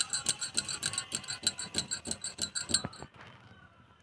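Rapid rhythmic jingling, about six light metallic strokes a second, in time with the hands rolling a ball of rice-flour dough between the palms. It stops about three seconds in, leaving only faint rubbing.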